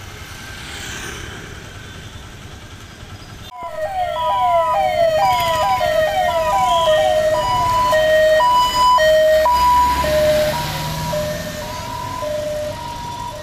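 Electronic emergency-vehicle siren starting suddenly about three and a half seconds in: a run of quick falling sweeps, then a two-tone high-low wail, over street traffic noise.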